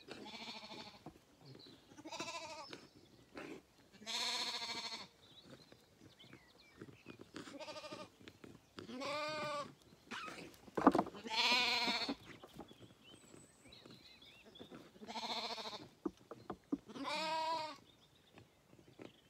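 Zwartbles lambs bleating, about eight quavering calls a second or two apart, some drawn out to about a second. A single sharp knock about halfway through.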